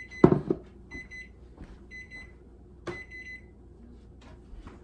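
Kitchen timer beeping in short pitched beeps about once a second, signalling that the banana bread has finished baking; the beeps stop after about three and a half seconds. A sharp knock comes about a quarter second in and another near three seconds.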